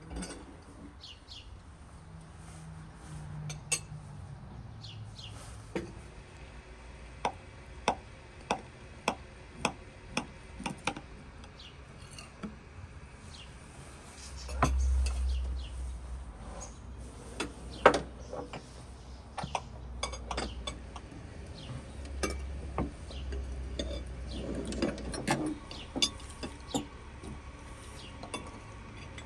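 Metal cutlery clinking and scraping against china plates and tea glasses as cake is cut and eaten: a string of short sharp clinks, including a quick run of about two a second a third of the way in and one louder clink past the middle. A low rumble comes and goes twice in the second half.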